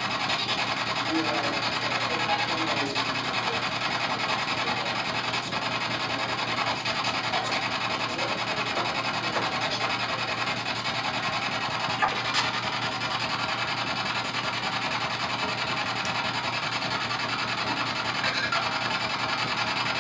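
P-SB7 spirit box sweeping through radio stations: a steady, choppy rush of static, with one sharper click about twelve seconds in.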